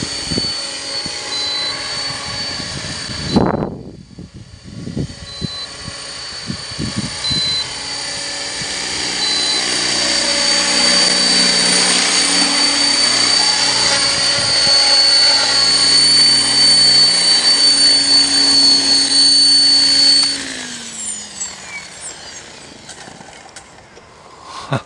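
Electric KDS Innova 550 RC helicopter in flight, its motor and rotor whine growing louder as it comes close. About 20 seconds in the whine cuts off suddenly and the rotor note falls in pitch as the blades spin down after landing.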